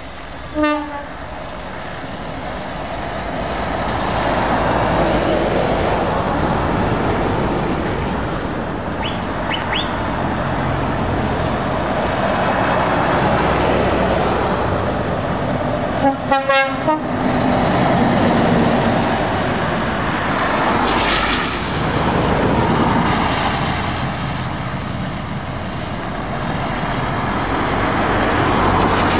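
Heavy lorries, Volvo FH and Scania tractor units, driving past one after another on a wet road: diesel engines and tyre spray swelling and fading as each passes. A short air-horn blast comes about half a second in, and a rapid run of horn toots comes about sixteen seconds in.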